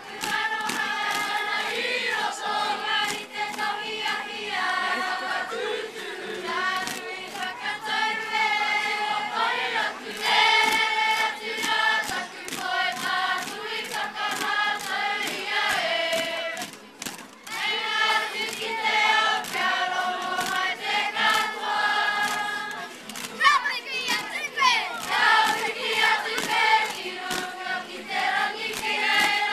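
A group of girls singing a poi song together, with the rhythmic taps of poi balls striking hands and bodies through the singing.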